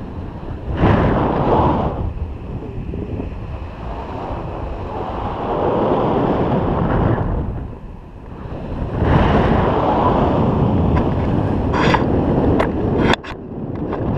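Wind buffeting the microphone of a camera carried by a paraglider in flight, swelling and easing in gusts about three times. A few sharp clicks come near the end.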